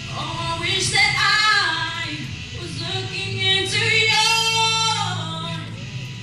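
Teenage girl singing a song into a microphone over the hall's sound system, with acoustic guitar accompaniment; she holds one long note about four seconds in.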